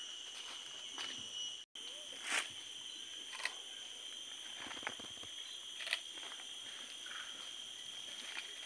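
Steady high-pitched insect chorus of the tropical forest, several constant tones layered together, with a few sharp clicks over it.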